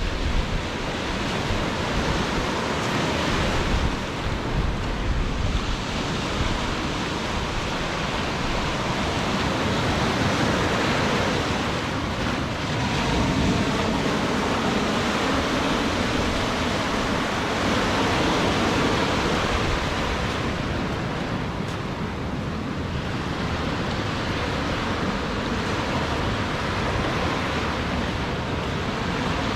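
Ocean surf washing onto the beach in a steady wash that swells and eases, with wind rumbling on the microphone.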